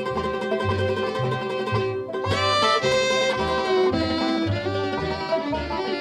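Bluegrass band playing an instrumental break: fiddle, banjo, mandolin and guitar over a bass keeping a steady two-beat. About two seconds in a bowed line slides up into long held notes.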